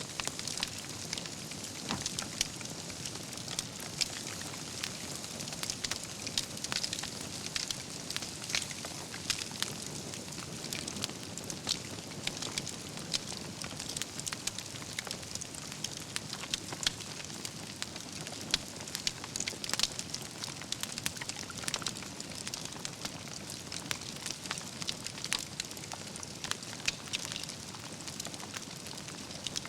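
Wood campfire burning steadily, with frequent sharp crackles and pops from the logs over a soft hiss.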